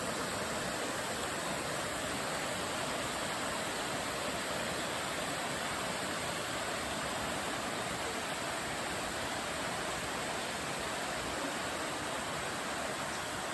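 Steady rush of water, an even hiss-like noise that holds at one level throughout.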